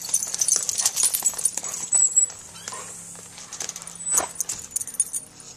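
A dog's booted paws clattering and scuffing on concrete as it runs in and then steps about: quick, irregular clicks, loudest about two seconds in, with another sharp clack about four seconds in.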